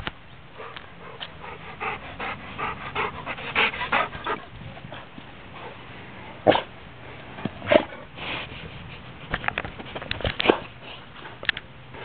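Dogs breathing and sniffing close by: a quick run of short breaths, with several sharp clicks and knocks scattered through the second half.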